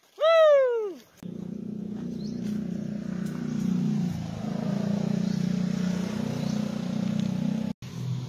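A short loud call that swoops down in pitch. Then, from about a second in, a Honda Click scooter's single-cylinder engine runs steadily as it is ridden. Near the end it cuts off suddenly and a lower engine drone takes over.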